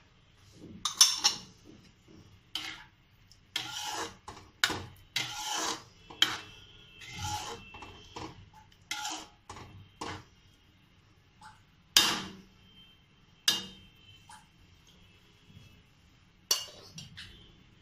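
A spoon scraping and knocking against a metal cooking pot as paneer and vegetables are stirred into a thick white sauce. The strokes come irregularly, some leaving a brief metallic ring.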